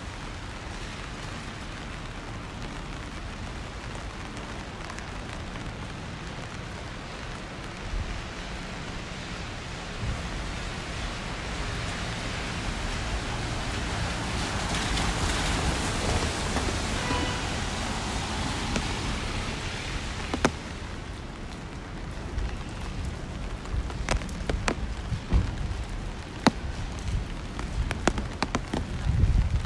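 Steady rain on a wet city street. A car passes on the wet road, its tyre hiss swelling for several seconds midway and then fading. In the last third, scattered sharp taps and low thumps sound close by.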